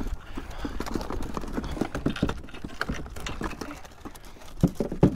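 A fish being landed with a net beside a kayak: a run of irregular clicks, knocks and splashy taps from the net, rod and fish, with two sharp thumps near the end.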